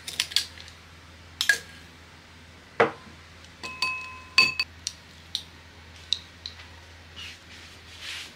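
Kitchen handling sounds: a string of light clicks and knocks of tableware and utensils being set down, with a pair of clinks about four seconds in that ring briefly.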